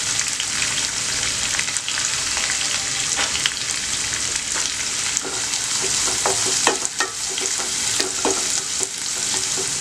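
Chopped onions and curry leaves sizzling in hot oil in a nonstick pan, a steady frying hiss. In the second half a wooden spatula stirs them, with short scrapes and taps against the pan.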